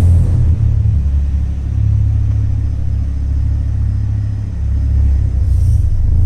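Ford Focus ST making a steady low rumble, the odd noise the owner cannot place.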